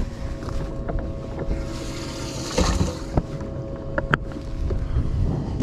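Wind on the microphone and handling noise aboard a fishing boat: scattered knocks and clicks over a steady low rumble with a faint hum, and a brief rush of hiss about halfway through.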